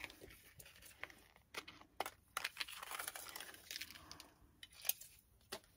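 Faint rustling and crinkling of plastic packaging being handled, with scattered small clicks and taps.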